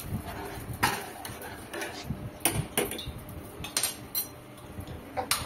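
Steel spoon stirring sugar into chai in a steel saucepan, clinking sharply against the pan several times.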